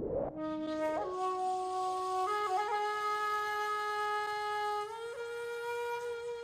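Music: a rising whoosh, then a single held woodwind-like tone that steps up in pitch three times, four long notes in all.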